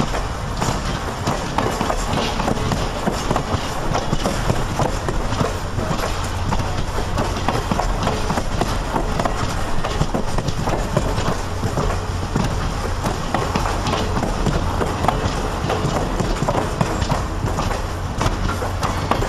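Stainless-steel passenger cars of a long circus train rolling past close by: a steady rumble from steel wheels on the rails, with a constant patter of wheel clicks.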